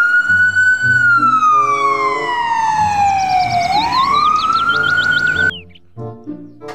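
Ambulance siren wailing: a slow rising and falling tone that climbs, sinks over a few seconds and climbs again, then cuts off suddenly near the end, over light background music.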